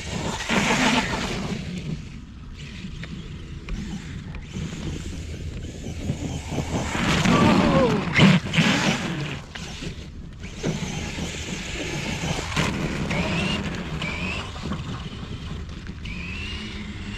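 Kyosho Foxx RC truck's brushless motor whining as it revs up and down in bursts while its paddle tires churn through wet, heavy snow. There are two loud surges, about a second in and again around the middle.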